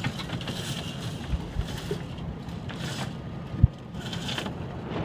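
Sailboat under way with wind buffeting the microphone in repeated gusts over a steady low hum, and one sharp knock a little past halfway.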